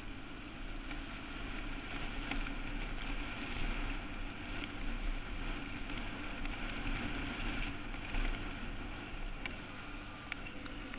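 Quad Runner 160 ATV's small single-cylinder engine running steadily as it is ridden, with a few sharp ticks near the end.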